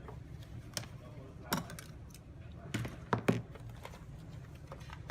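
Scattered sharp clicks and taps of hard objects being handled, a few single ones and a quick cluster in the middle, the loudest about three seconds in, over a low steady hum.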